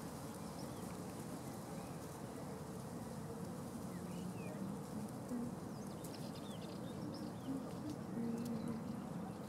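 Faint outdoor ambience: an insect such as a fly or bee buzzing, with a few short bird chirps about halfway through and again a couple of seconds later.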